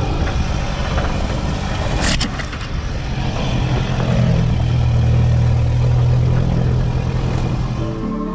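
Toyota Hilux driving over a rough dirt track, heard from a camera mounted on the outside of its body: a steady engine rumble with road and tyre noise and a sharp knock about two seconds in. The engine note grows heavier about halfway through.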